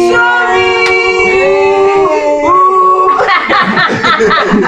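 A voice holding long sung notes that step upward in pitch. From about three seconds in, many voices break in at once, with clapping.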